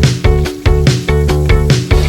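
Background music: an upbeat funk-style track with a steady beat and a bass line.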